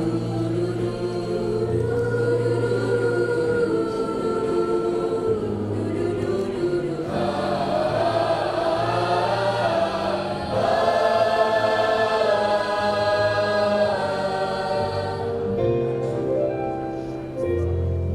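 Choir singing in long held chords with a steady low accompaniment, the sound growing fuller and a little louder about halfway through.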